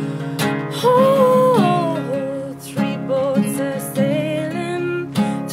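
A woman singing live, holding long notes that slide between pitches, over a strummed acoustic guitar.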